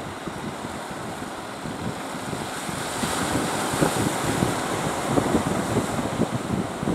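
Wind buffeting the microphone over a steady rush of water, the gusts growing louder about halfway through.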